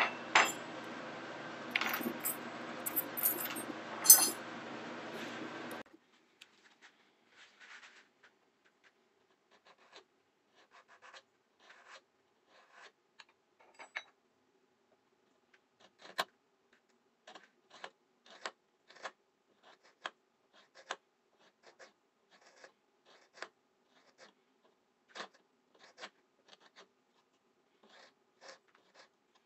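Scattered, irregular light clicks and taps of small objects being handled. For the first six seconds they sit over a steady hiss, which cuts off abruptly.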